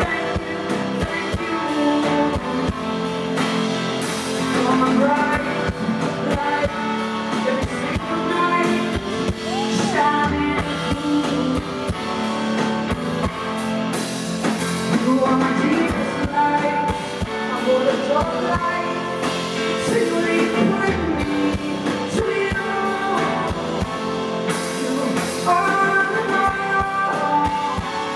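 A live band playing, with a woman singing over drums.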